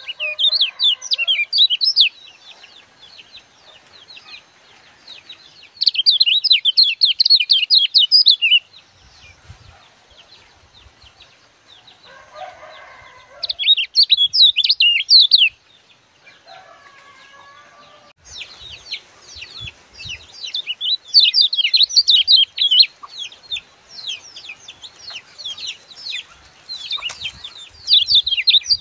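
Caged kecial kuning (yellow white-eye) singing its rapid, chattering gebokan song in loud bouts of a couple of seconds, then almost without pause through the second half.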